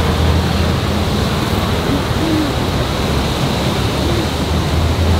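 Steady busy-street ambience: traffic noise with a constant low hum, two faint short hoot-like tones about two and four seconds in.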